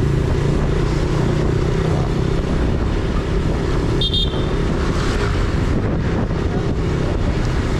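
Honda PCX 160 scooter's single-cylinder engine running steadily at low road speed, with wind and road noise. A brief high-pitched tone sounds about four seconds in.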